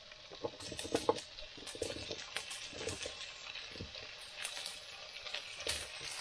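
Beef burgers frying in a hot ridged grill pan, a steady sizzle with frequent small crackles and pops. In the first few seconds there are light knocks and clatters as chopped mushrooms and potatoes are pushed into the pan.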